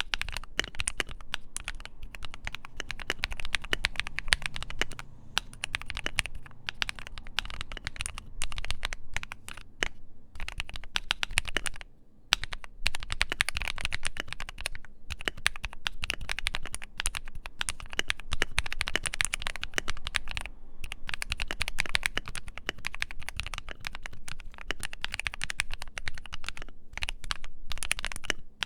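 Continuous typing on a modded Keychron Q3 mechanical keyboard fitted with filmed and lubed Akko Matcha Green switches: fast runs of keystrokes with brief pauses, the loudest about twelve seconds in.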